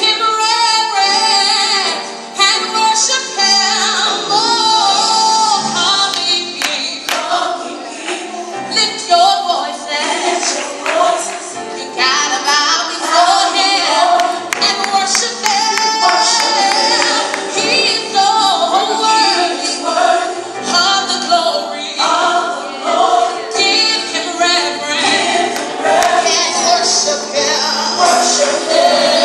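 Gospel song with a woman singing over instrumental accompaniment, the music for a praise mime dance.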